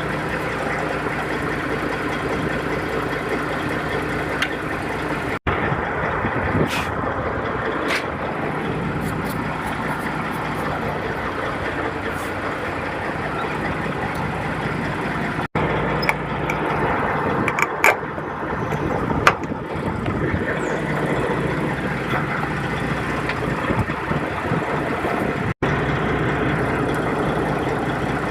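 Heavy truck diesel engine idling steadily, with a few sharp metallic clicks of tools against it. The sound cuts out for an instant three times.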